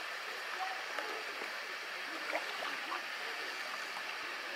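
Gentle seawater lapping and gurgling against a stone quay, a steady wash of water noise with scattered small ticks and splashes.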